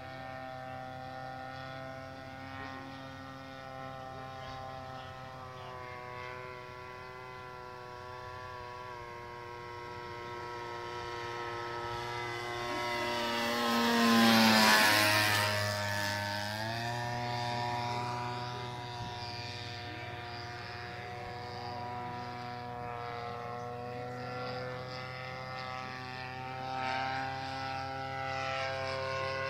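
Radio-controlled scale model of the Dormoy Bathtub in flight, its motor and propeller running steadily. It passes close about halfway through, growing louder, and its pitch drops as it goes by.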